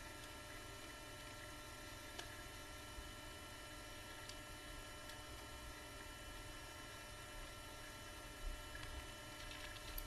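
Steady, faint electrical hum, with a few faint small clicks and a soft low bump near the end.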